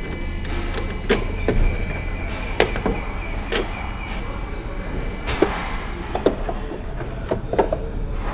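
A plastic engine-bay cover being unbolted with a hand driver and lifted off: scattered clicks and knocks of tool and plastic over a steady low hum. A fast-pulsing high tone starts about a second in and stops about three seconds later.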